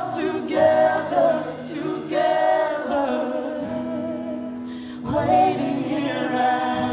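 Live band performance: several voices singing a melody together over a steady band accompaniment, the sung phrases pausing briefly about two seconds and five seconds in.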